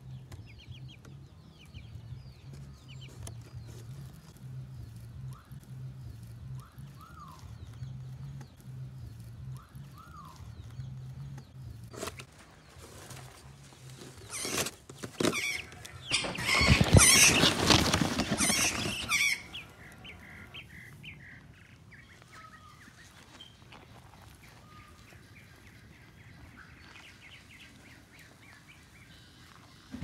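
Birds chirping lightly over a faint low hum. Then, about halfway through, a loud spell of scraping and rustling lasting some five seconds: cardboard being shoved and scraped as a monitor lizard forces its head into a cardboard box.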